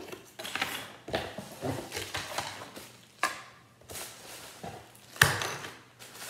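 Kit parts being unpacked by hand: rustling of plastic bags and cardboard, with a few sharp knocks as pieces are set down on the table, the loudest about five seconds in.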